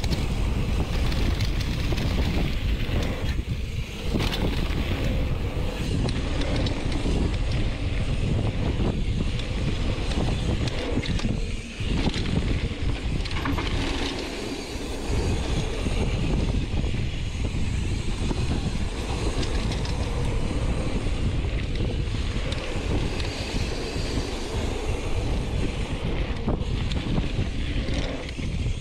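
Mountain bike descending a dirt trail at speed: steady wind buffeting the microphone over the rumble of knobby tyres on packed dirt, with small knocks from bumps.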